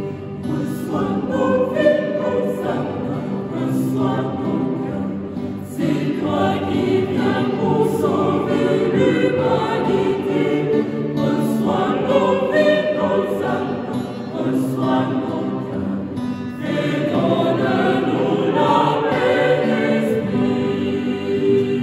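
Mixed choir of men's and women's voices singing a church hymn together in parts, moving between sustained notes.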